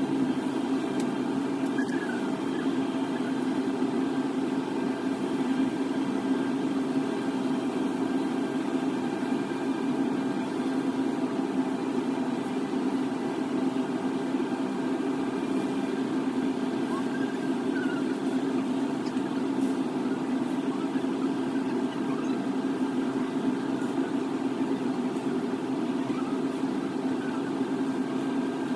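Steady low mechanical hum at a constant pitch and level, like an idling engine or running machinery.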